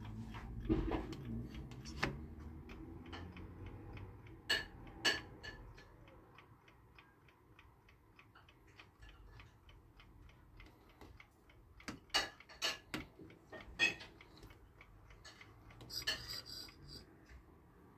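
Wooden Soviet 'Yantar' mechanical chess clock from 1954 ticking steadily, with louder clicks and knocks at intervals as its top buttons are pressed and the case is handled.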